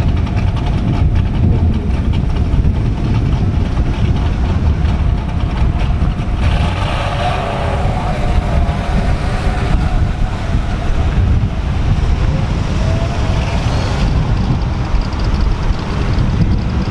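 Steady deep rumble of a running car. A brighter, busier layer of noise comes in about six seconds in and drops away around fourteen seconds in.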